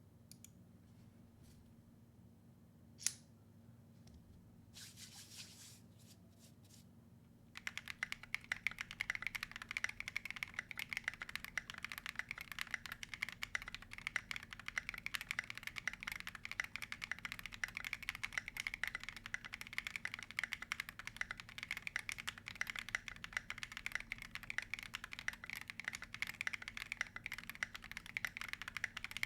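Custom gasket-mount M1W mechanical keyboard with a polycarbonate plate, Akko Yellow linear switches and SA-profile keycaps. A few single clicks come in the first seven seconds, then fast, continuous typing starts and keeps going.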